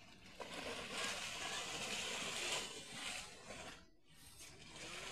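Water splashing and churning as a man wades and thrashes through waist-deep canal water, easing off briefly near the end.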